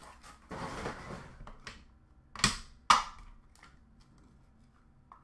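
Trading-card packaging being handled and opened: a papery rustle, then a few sharp clicks and snaps, the two loudest about halfway through.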